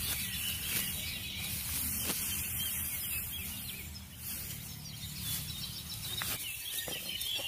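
Outdoor field ambience: faint birds chirping over a steady hiss and a low hum.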